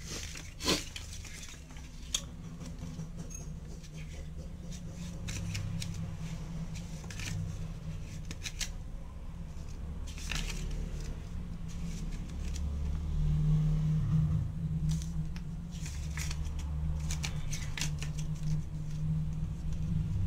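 A paper instruction booklet being unfolded and its pages turned by hand, with crisp rustles and crackles of paper, over a steady low rumble in the background.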